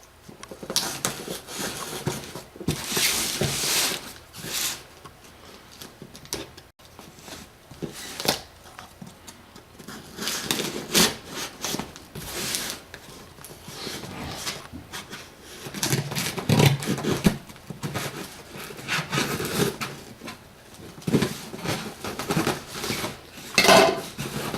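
A cardboard shipping box being worked open by hand: irregular scraping, rustling and tearing of the packaging.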